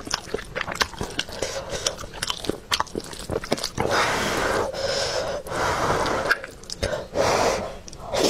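Close-up eating sounds: wet chewing with many small mouth clicks, then from about four seconds in longer wet, noisy stretches as the saucy rice is stirred and spooned into the mouth.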